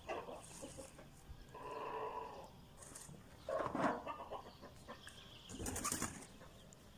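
Free-range chickens in a yard: four short sounds a second or two apart, hen calls and a flutter of wings near the end, the loudest about halfway through.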